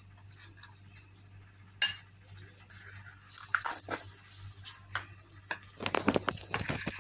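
Metal spoon clinking and scraping against a glass bowl while stirring dry flour, with one sharp tap about two seconds in and bursts of quick clinks near the middle and end.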